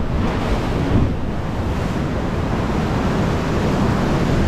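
Ocean surf washing steadily into a sea cave, with wind buffeting the microphone.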